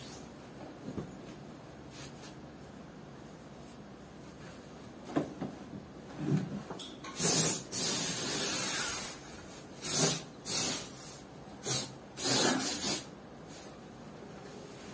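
Bed sheet fabric rustling as a hand smooths a fitted sheet over a mattress, in a run of strokes that starts about halfway through: one long stroke of about two seconds, then four shorter ones.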